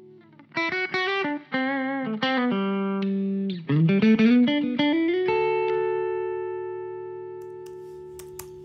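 Fano Omnis MG6 electric guitar with P90 pickups played through amplifiers: a quick lead phrase of single notes with bends and a slide up, then a last note left to ring and slowly fade. A few small clicks come near the end.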